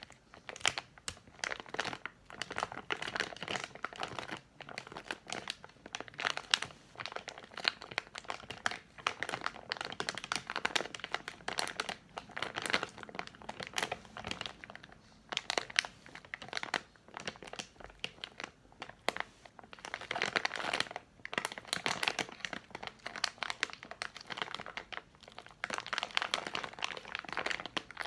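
Candy packaging crinkled and squeezed by hand: dense, irregular crackling with a few short pauses.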